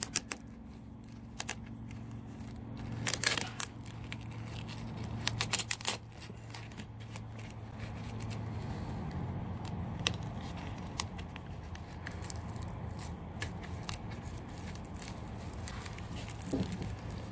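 Rustling, scraping and small clicks of a nylon webbing belt being handled as items are pushed and squeezed into its pockets, over a steady low hum.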